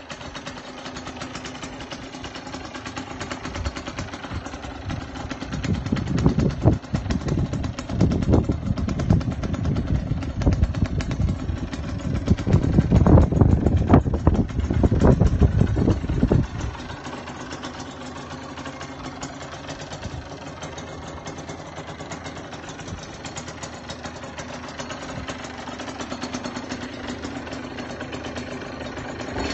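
Aprilia RX 50's 50cc two-stroke single-cylinder engine running. It starts at a steady idle, becomes louder and uneven for about ten seconds in the middle, then settles back to a steady idle.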